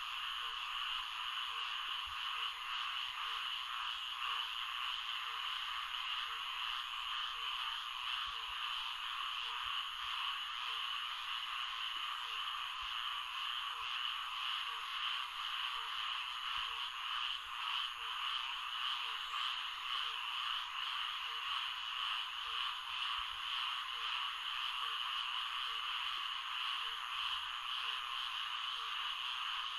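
Florida swamp ambience: a steady, dense chorus of frogs, with one lower call repeating about once a second.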